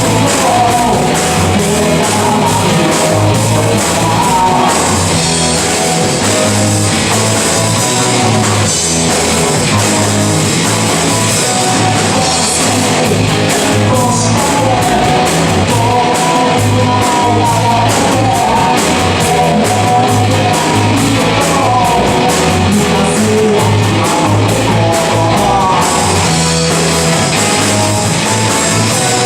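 Live rock and roll band playing: electric guitar and drum kit with a singer, a steady driving beat throughout.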